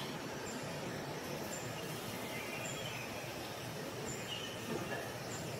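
Steady outdoor background noise with faint, short high-pitched chirps scattered through it, like distant birds.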